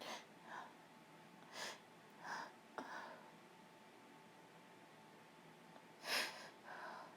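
A woman with a cold breathing in short, noisy gasps and sniffs, some seven in all, the loudest a sharp burst about six seconds in.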